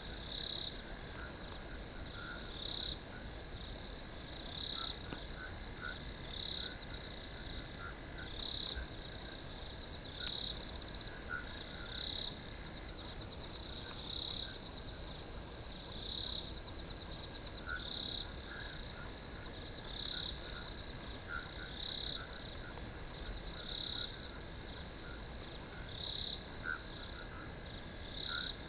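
Crickets in a field chirping: a steady high trill, with a louder chirp about every one and a half to two seconds and fainter, lower chirps scattered between.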